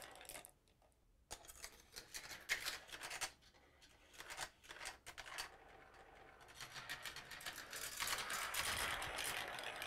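Marbles running through a GraviTrax marble run: rolling along plastic track and metal rails with clicks and clacks as they drop onto and knock against the pieces. The rolling breaks off briefly about half a second in, gives way to a scatter of sharp clacks over the next two seconds, and returns as a steady rolling rattle in the last few seconds.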